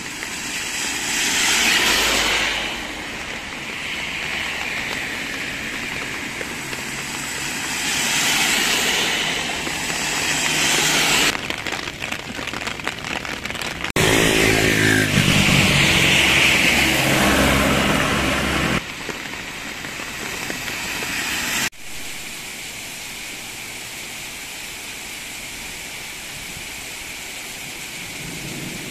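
Cars passing on a rain-soaked road, their tyres hissing through standing water over falling rain; the vehicle passing about halfway through also has its engine audible. In the last third, only the steady hiss of heavy rain.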